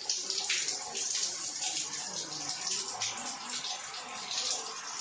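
Water running steadily from a shower or tap fed by an instant electric water heater, splashing down with a fluctuating hiss.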